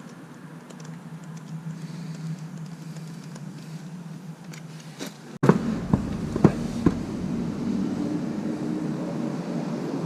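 A steady low hum, then, after an abrupt cut about halfway, four sharp knocks and clinks of hand tools working on the dirt bike's engine cases during oil filter removal.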